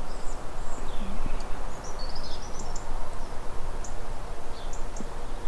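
Outdoor ambience: a steady background hiss with small birds chirping faintly now and then, busiest about two seconds in.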